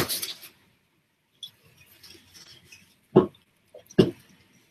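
A spatula knocking against a frying pan on the stove: two sharp knocks about a second apart near the end, with a lighter tap between them, after a stretch of faint frying sizzle.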